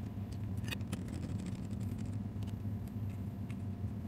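A few light clicks from small screws and a screwdriver being handled on a laptop's base, over a steady low hum.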